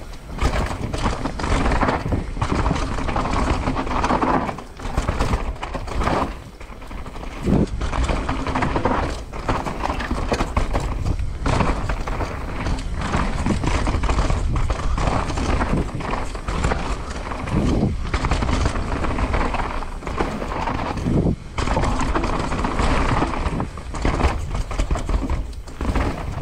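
Downhill mountain bike ridden fast over rough dirt trail: a steady clatter of chain, suspension and tyres, with many sharp knocks from roots and rocks and wind buffeting the microphone. The clatter drops away briefly a few times.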